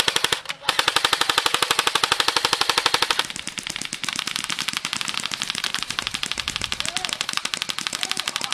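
Airsoft rifle firing long full-auto bursts, a fast, even rattle of shots with a brief break a second in. About three seconds in the rattle drops to a lower level and keeps going.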